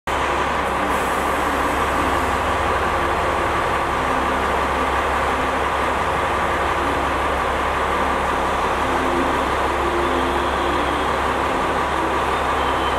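Diesel railcar idling while it stands at the platform: a steady engine hum with a constant higher whine over it, unchanging throughout.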